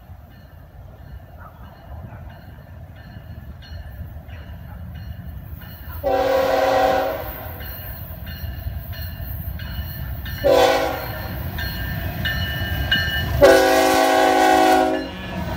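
GE ES44C4 diesel locomotives approaching and passing a grade crossing, the engine rumble growing steadily louder. The air horn sounds for the crossing: a long blast, a short one, then a long one near the end. A crossing bell rings steadily, about twice a second.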